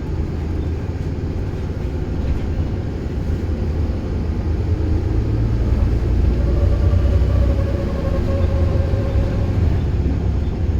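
Bus running with a steady low engine drone. A steady whine joins in about six seconds in and fades out after about three and a half seconds, one of the bus's 'weird noises'.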